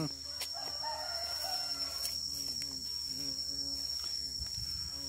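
A steady high-pitched insect drone, with faint pitched sounds coming and going underneath.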